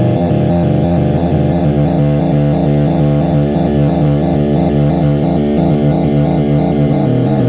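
Loud noise music: a dense, rapidly pulsing synthesizer texture over a steady low drone.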